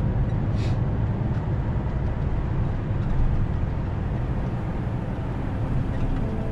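Truck cab interior while driving: a steady low rumble of the diesel engine and road noise. Faint music fades in near the end.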